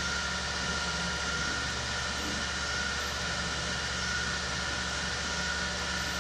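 Steady background hum and hiss in the room, unchanging throughout, with a faint constant high whine over a low hum.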